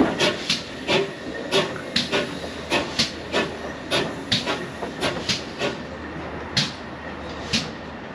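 Train wheels clicking over rail joints as the carriages roll slowly past, several sharp clicks a second over a low rumble. The clicks come further apart and fainter near the end as the train slows.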